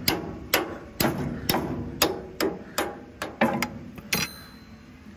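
Hammer striking the metal of a New Holland 489 haybine's cutter bar as it is put back together: about ten blows at roughly two a second, the last one ringing, stopping a little after four seconds in.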